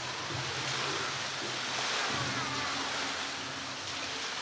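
Steady rushing of flowing water in a polar bear enclosure's pool, with a faint murmur of voices beneath it.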